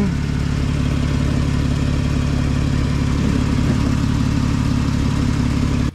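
2012 Dodge Caravan's 3.6-litre V6 idling steadily. It cuts off abruptly near the end.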